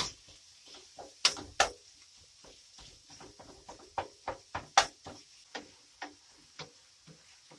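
Wooden spatula knocking and scraping against a non-stick frying pan while ground beef is stirred and sautéed with chopped onion and peppers: irregular clicks and taps a few times a second, the loudest about five seconds in, over a faint steady hiss.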